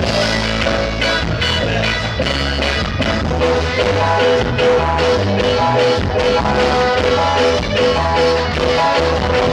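A band playing a song with drums, bass and a steady beat, in an instrumental stretch without clear singing. About three seconds in, a short repeated melody figure comes in on top.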